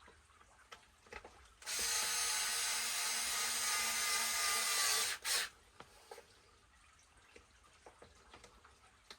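Power drill with a driver bit running steadily for about three and a half seconds while driving a screw back in, followed at once by a brief second blip of the trigger. Light clicks of parts and tools being handled before and after.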